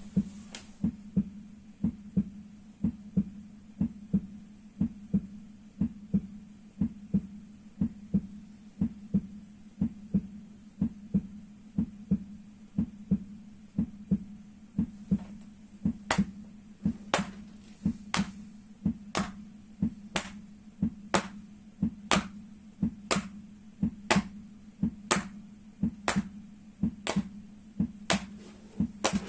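Soles of the feet being struck in a steady heartbeat-like rhythm, paired knocks about once a second, over a steady low hum. From about halfway in, sharper clicks come in alongside the knocks.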